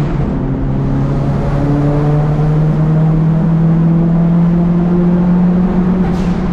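Nissan S13 Silvia's turbocharged SR20DET four-cylinder heard from inside the cabin, driving at steady revs with road noise under it. The engine note dips briefly at the start, then holds steady.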